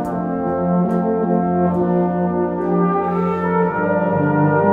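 A brass band of cornets, tenor horns, euphoniums, trombones and tubas playing sustained chords, with sharp percussion strikes about once a second in the first half and a change of chord near the end.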